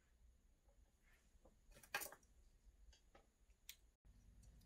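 Near silence: room tone, with one brief faint click about two seconds in and a fainter tick a little later.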